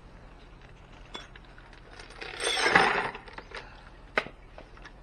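Steel bolts and brackets clinking against each other in a plastic bucket as they are washed in rinse water after an acid dip. There are a few light clinks and one louder swishing rattle about halfway through.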